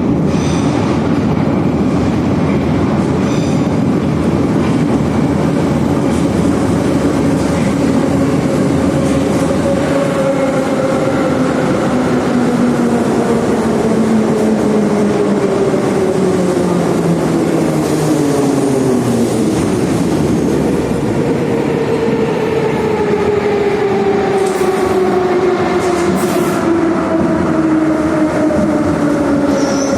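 Interior running noise of an 81-717 'Nomernoy' metro train, with rail rumble and wheel clatter. Several whining tones glide slowly down in pitch through the second half as the train slows.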